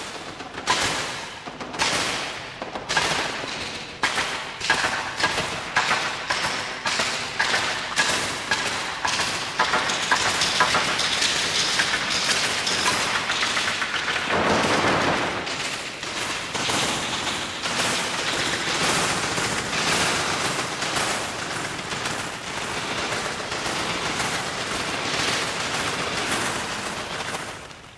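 Experimental electroacoustic music: a dense, irregular clatter of sharp clicks and strikes that thickens after about ten seconds into a continuous rattling texture, with a swelling rush of noise about halfway through.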